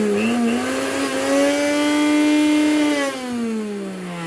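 Juicer-blender motor running: it whines up to speed in the first moments, holds a steady high whine, then is switched off about three seconds in and winds down, falling in pitch. A test run after a new drive gear was fitted in place of one with broken teeth.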